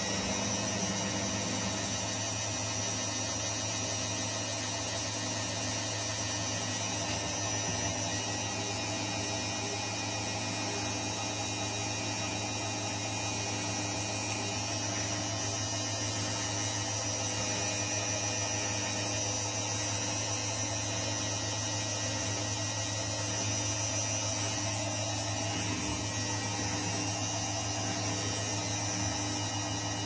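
Candy CS 105 TXT R front-loading washing machine on its spin cycle, the drum turning at a constant high speed: a steady hum with a high whine over it.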